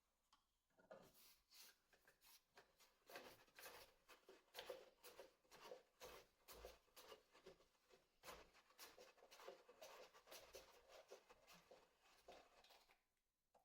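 Faint, irregular scratching and rubbing with many light clicks, like hand work on a small part.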